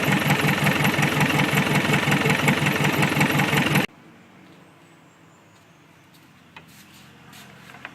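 Isuzu D-Max diesel engine idling with a steady pulsing rhythm, then shut off abruptly about four seconds in, leaving only a few faint clicks.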